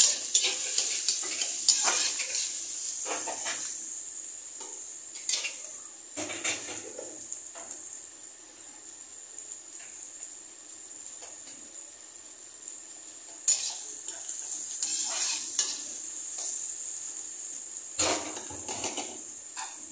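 Chopped onions and green chillies sizzling in hot oil in a kadhai while being fried until browned. A metal slotted spatula scrapes and clinks against the pan at irregular intervals. The sizzle eases off in the middle and picks up again with renewed stirring after about two-thirds of the way through.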